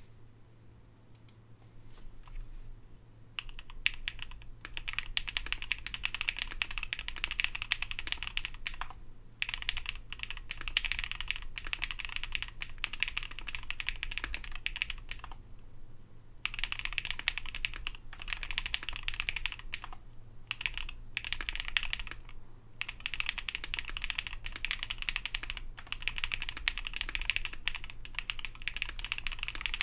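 Typing on an ai03 Vega mechanical keyboard with an aluminium plate, lubed Zaku linear switches and JTK Night Sakura keycaps: fast, continuous key strokes with a few brief pauses. The first few seconds have only sparse, quieter strokes. A faint steady low hum sits underneath.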